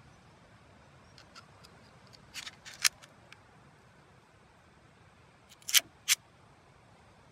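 Metal parts of a Makarov pistol clicking as they are handled: a few light ticks, then two pairs of sharp clicks about three seconds apart.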